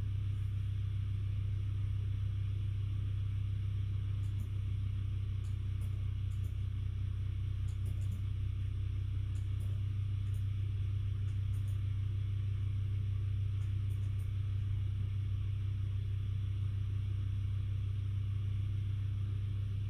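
GhostBed adjustable bed base's massage motors vibrating with a steady low hum.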